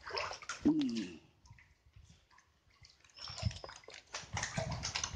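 Water splashing and a hooked barracuda thrashing at the surface as it is grabbed by a gloved hand, with a burst of splashing and a short falling vocal sound about a second in.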